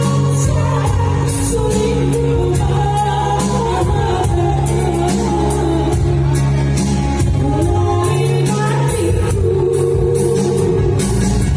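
A Gayo song: a female voice singing a melody over instrumental backing with a steady beat.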